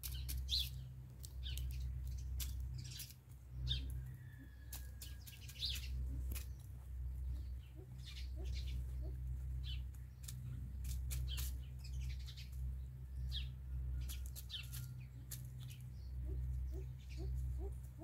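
A chicken pecking at grain scattered on bare soil, its beak striking the ground in quick, irregular clicks, a few each second, with short bird chirps among them. A steady low rumble runs underneath.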